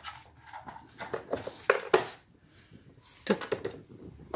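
Dogs nosing at a treat-search puzzle board, its lids and pegs clattering and knocking in short clusters about a second in and again after three seconds.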